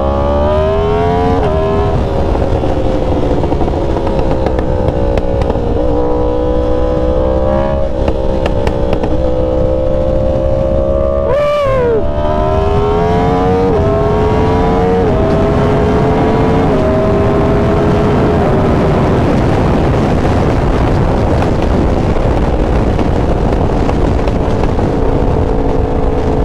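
Yamaha R1's crossplane inline-four engine pulling through the gears. Its pitch climbs and then drops at each upshift, with a brief cut in the sound at one shift about eleven seconds in. In the second half the engine pitch eases slowly down as the bike cruises, under a growing rush of wind.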